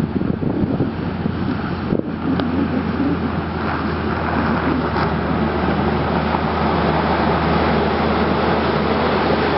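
Caterpillar 140M motor grader's diesel engine running as it drives closer while its front plow blade pushes snow, a steady engine hum under a rising hiss of scraped snow that grows louder. Wind buffets the microphone during the first couple of seconds.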